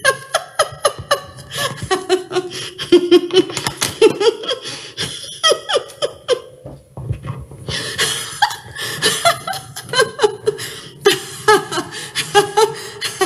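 A woman laughing hard in long runs of quick repeated bursts, with a short lull midway. It is deliberate, sustained laughter done as a group laughter exercise.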